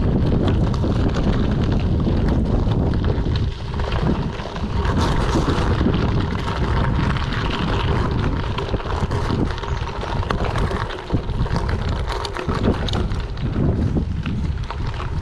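Wind buffeting the microphone of a camera riding on a moving bicycle, with the tyres crackling over a loose gravel surface.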